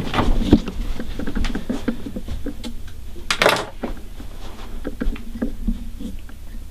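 Light taps, knocks and rustling as a person moves about and handles things in a small room, with a louder rustle about three and a half seconds in, over a low steady hum.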